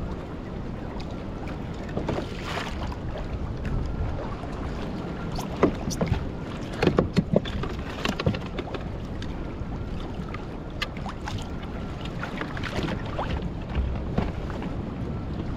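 Choppy water slapping and sloshing against a small fishing craft's hull, with wind buffeting the microphone. There is a cluster of sharp knocks and slaps about six to eight seconds in.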